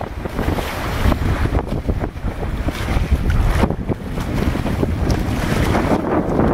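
Wind buffeting the microphone in a low, steady rumble, over the rush and splash of water along the hull of a wooden sailing dhow under way.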